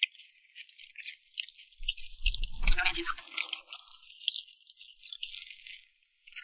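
Close-up crunching and chewing of crispy food, a dense crackle of small clicks, with a low thump about two seconds in.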